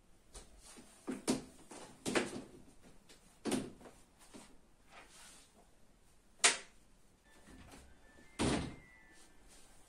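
A series of about five sharp household knocks and thuds, spaced a second or more apart, the sharpest about six and a half seconds in, typical of doors, cupboards or objects being moved during housework.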